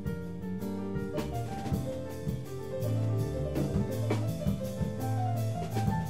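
Small mixed ensemble of electric bass, cello, violin and piano playing a jazz-tinged piece live, with sustained notes over a moving bass line and sharp percussion hits.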